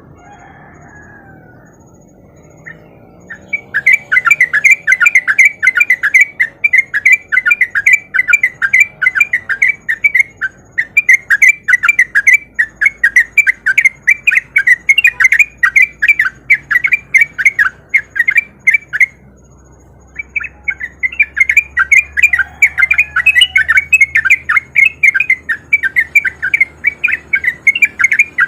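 Yellow-vented bulbul (trucuk) singing a long, rapid, chattering run of loud notes. The run starts a few seconds in, breaks off for about a second past the middle, then resumes.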